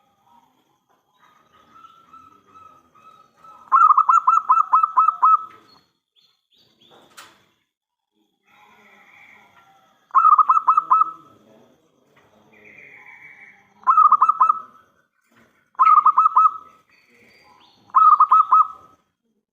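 Zebra dove (perkutut) cooing in five loud bursts of quick staccato notes, the first and longest about four seconds in. Before it comes a softer held note, and a single sharp click sounds about seven seconds in.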